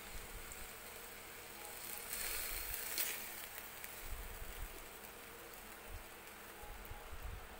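Spatula stirring chop suey in a wok of simmering sauce over a gas burner, with a louder stretch of scraping about two seconds in, over a steady hum.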